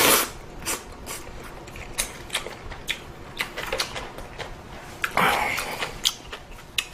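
A person eating ramen close to the microphone: a run of small irregular clicks and smacks from chewing and utensils, with a short noisy burst about five seconds in.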